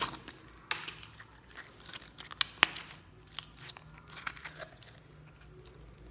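Clear plastic film crinkling as it is peeled off a tub of jelly slime, then the sticky slime crackling and popping as fingers dig it out of the plastic tub. Irregular clicks and crackles, with a few sharp loud ones near the middle.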